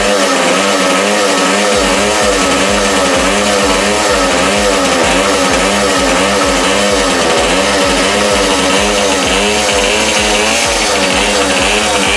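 Jawa Pionýr 21's single-cylinder 50 cc two-stroke engine running with its speed wavering, charging the 6-volt battery at about 6.3 to 6.7 volts.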